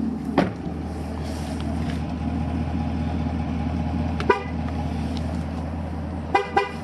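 Camaro SS horn giving short chirps over the steady hum of the idling car: one about four seconds in and two quick ones near the end, with a sharp click just after the start. During a tire pressure sensor relearn the horn chirps to confirm each sensor it has learned.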